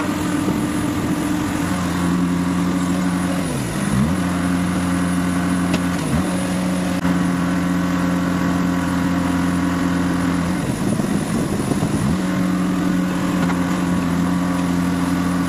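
Engine of an aircraft cargo loader running steadily, its pitch sagging and recovering briefly three times as it takes load while a pallet is moved.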